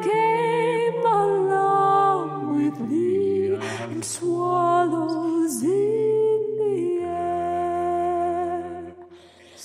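Background song: a woman singing slowly in long held notes with vibrato, over a low sustained accompaniment, in a gentle lullaby style.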